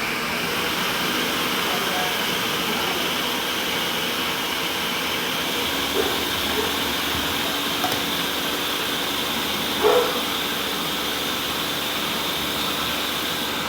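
Electric blender motor running steadily, pureeing chopped bell peppers, cilantro and garlic with olive oil, with a brief clunk about ten seconds in. It cuts off suddenly near the end.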